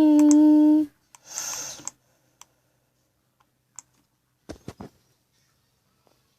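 A held, synthetic-sounding sung note that cuts off just under a second in, then a brief hiss. After that come a few scattered sharp clicks, with a quick cluster of three or four about halfway through.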